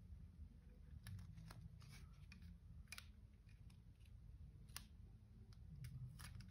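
Near silence with a few faint clicks and crinkles of tape being pressed and smoothed down by hand onto a metal plate.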